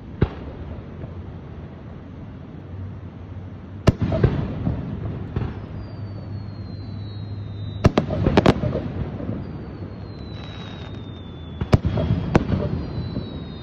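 Aerial firework shells bursting at a distance: about six sharp bangs a few seconds apart, two of them in quick pairs, each followed by a rolling rumble. Thin high whistles glide slowly down in pitch between the bursts.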